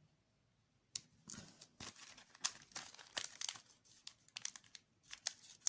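Packaging crinkling and tearing with small sharp clicks, starting about a second in, as a new ball bearing is taken out of its packet.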